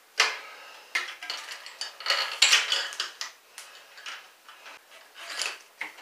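Metal roller chain clinking and rattling in irregular bursts as it is handled against the sprockets and frame of a motorized bicycle while its alignment is checked.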